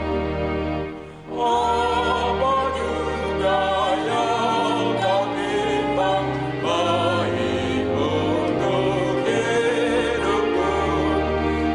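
A man and a woman singing a church hymn together through microphones, accompanied by a digital piano. The piano introduction breaks off briefly about a second in, and the voices come in just after.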